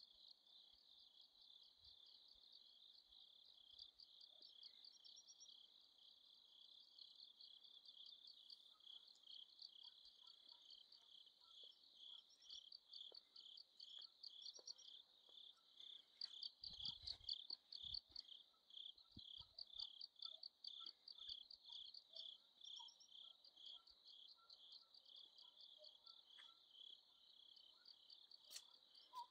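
Faint chorus of crickets chirping steadily in rapid pulses, swelling a little just past the middle. A brief low thump comes about halfway through.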